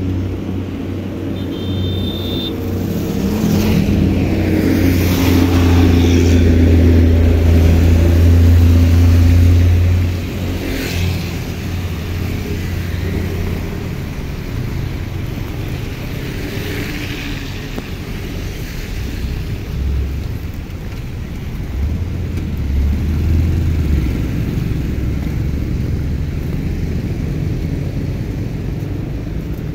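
Traffic passing on a rain-soaked road: tyres hiss through the water as cars go by, about three passes, over steady rain. A strong low rumble runs under the first part and drops away suddenly about ten seconds in.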